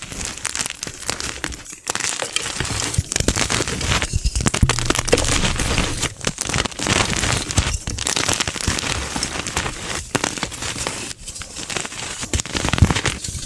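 Gym chalk being crushed: dense crunching and crumbling in repeated squeezes of a second or two each, with short pauses between them and dull low thuds under the crunch.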